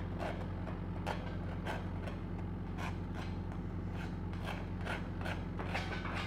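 Tip of a welding rod scratching and scraping slag off a pipe weld bead, an irregular run of short scrapes and clicks. Under it runs the steady hum of an engine-driven welding machine, a Lincoln SAE 300.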